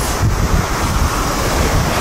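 A heavy diesel tractor unit hauling a shipping container passes close by, a loud low rumble mixed with wind buffeting the microphone.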